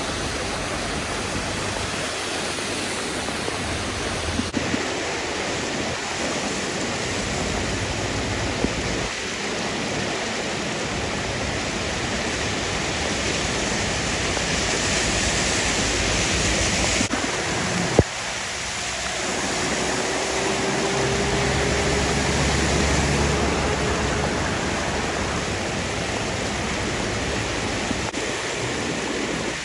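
Rushing floodwater and heavy rain make a steady hiss that changes abruptly twice. A single sharp click sounds a little past halfway.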